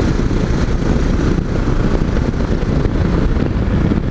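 Steady riding noise from a Yamaha XT 660Z Ténéré at road speed on a wet highway: wind rushing over the microphone, with the single-cylinder engine and the tyres on wet tarmac blended into one low, even rush.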